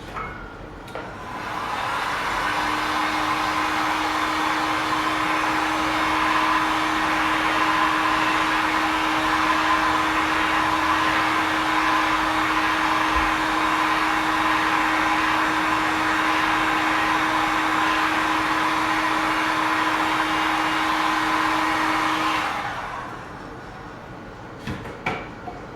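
Electric hot-air heater blowing steadily with a constant hum, force-drying freshly brushed primer in a paint chip repair. It starts about a second and a half in and cuts off near the end.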